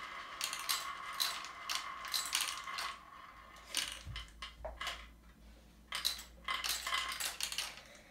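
Marbles clicking and clattering down a plastic Migoga Marble Run Maxi, many quick irregular clicks, with a faint steady ringing tone that fades out about three seconds in.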